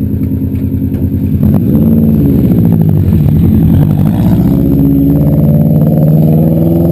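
Subaru rally car engine running at a steady low idle, then revved and getting louder about a second and a half in as the car creeps forward, its pitch rising and falling with the blips of throttle.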